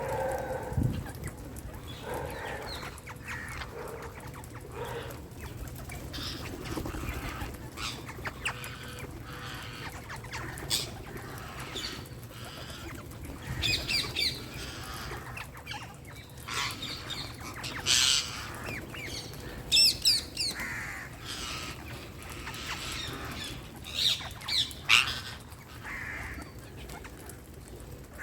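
Wild Indian green parakeets calling in short, shrill squawks, scattered irregularly with several louder bursts in quick succession, over a steady outdoor background.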